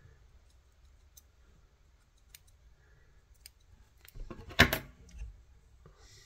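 Small fly-tying scissors snipping synthetic ice dubbing fibres, a few faint sharp snips about a second apart as the body is trimmed to shape. A single louder knock follows about four and a half seconds in.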